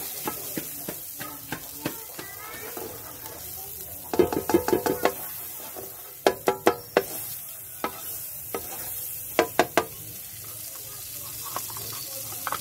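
Butter sizzling as it melts in a hot nonstick frying pan while a spatula pushes it around. The spatula scrapes the pan and knocks against it in several quick runs of ringing taps, the first about four seconds in, another around six seconds in and a last one near ten seconds.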